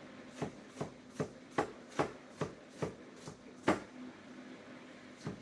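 Kitchen knife chopping a yellow pepper on a plastic cutting board: steady knocks about two to three a second, pausing after about four seconds before one more cut near the end.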